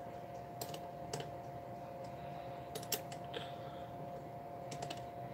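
Small metal clicks of an open-end wrench being fitted to and turned on the pillar-post nuts of a 31-day clock movement's brass plates, several scattered clicks over a steady faint hum.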